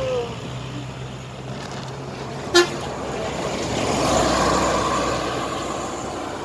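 Bus traffic with horns: a telolet bus horn's falling glide ends just at the start, then one short, sharp horn toot about two and a half seconds in, followed by a vehicle passing with a swell of engine and road noise that fades.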